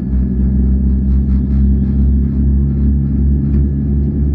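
Cabin noise of a Boeing 787-9 taxiing on the ground: a steady low engine and airframe rumble with a hum and a faint high whine, and a few light rattles.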